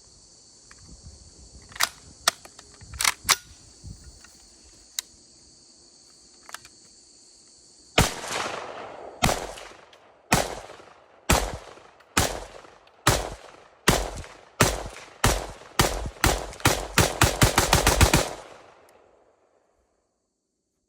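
IWI Carmel 5.56 mm rifle firing: single shots about a second apart from about eight seconds in, coming faster and ending in a rapid string of shots near the end. Before the shooting there is a steady high hiss with a few sharp clicks.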